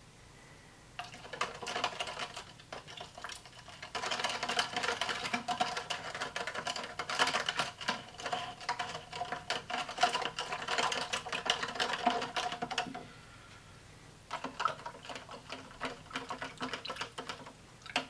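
A spoon stirring powdered drink mix with water in a clear plastic cup, making a fast run of light clicks against the cup wall. The clicking stops for about a second after some twelve seconds, then starts again as a second cup is stirred.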